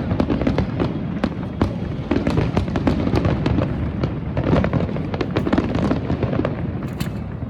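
Fireworks display going off: a dense, continuous run of bangs and crackles, several every second.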